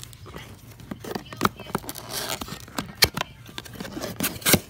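A small cardboard box being opened and handled by hand: irregular taps, clicks and scraping of cardboard flaps, with the sharpest knocks about three seconds in and near the end.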